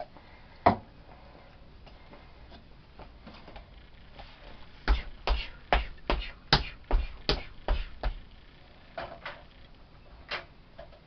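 Dishes and dishwasher racks knocking and clattering as a dishwasher is loaded: a single sharp click about a second in, then a quick run of knocks with dull thumps under them, about three a second, in the middle, and a few more near the end.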